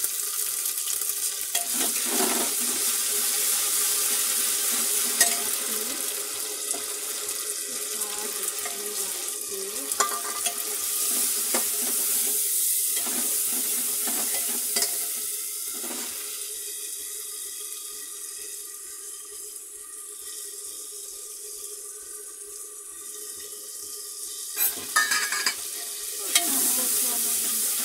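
Food sizzling and frying in hot oil in an open aluminium pressure cooker, stirred with a metal ladle that clinks and scrapes against the pot now and then. The sizzle eases off in the middle and grows louder again near the end as the stirring picks up.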